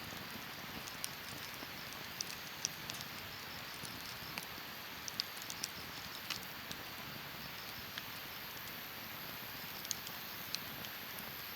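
Wood burning in an open campfire, crackling: a steady soft hiss broken by irregular sharp pops and snaps, a dozen or more.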